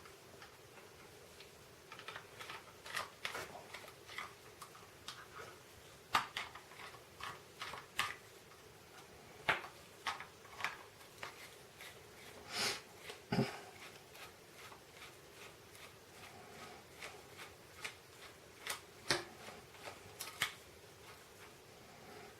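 Small metal parts of a VAZ-2101 mechanical fuel pump clicking and tapping irregularly as it is handled and taken apart by hand, with a handful of louder knocks among the light clicks.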